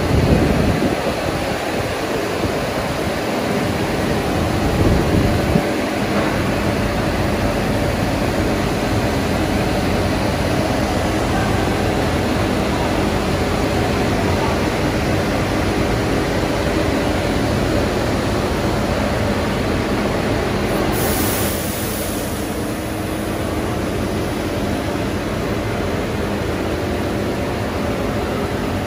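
Extrusion lamination line running: a steady machine drone of motors, rollers and blowers with a few faint steady tones. A brief high hiss comes about two-thirds of the way through.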